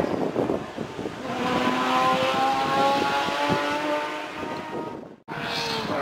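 Porsche 997 GT3 rally car's flat-six engine accelerating hard as the car moves away, its note rising steadily in pitch. About five seconds in the sound cuts off abruptly, and another rally car's engine follows.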